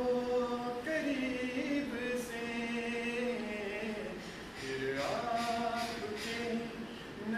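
A man singing an old song solo and unaccompanied, holding long notes and sliding between pitches.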